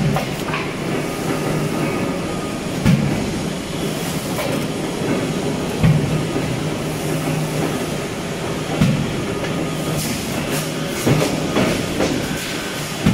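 Punch press on an aluminium cookware circle blanking line, stamping out pot circles: a sharp thud about every three seconds over a steady machine hum.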